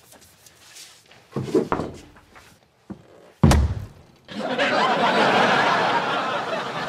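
One hard thunk, as the butt end of a wooden pool cue rams into the wall behind the player on the backswing, then a long wash of studio audience laughter.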